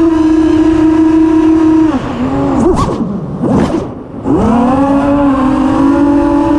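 Eachine Wizard FPV racing quadcopter's motors and propellers whining at a steady high pitch. About two seconds in the throttle drops and the pitch wavers and sags, then a little after four seconds the motors spool back up to a steady whine.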